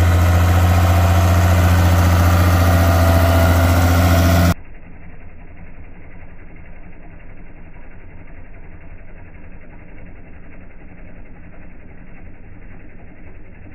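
International 966 tractor's six-cylinder engine running steadily while it pulls an offset disc harrow through the soil. The sound is loud with a deep, even drone for about four and a half seconds, then drops suddenly to a much quieter, muffled rumble.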